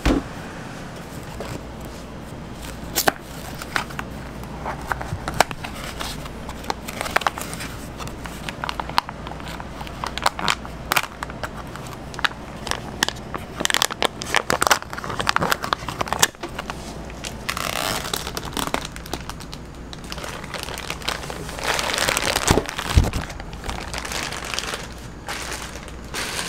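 Plastic liner of a bulk cream cheese block crinkling and crackling as it is cut open and the cheese worked out with a metal spatula, with scattered clicks and knocks of the cardboard carton being handled.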